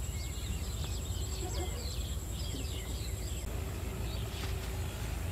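Small birds chirping in quick, scattered calls over a steady low rumble; the chirping dies away about three and a half seconds in.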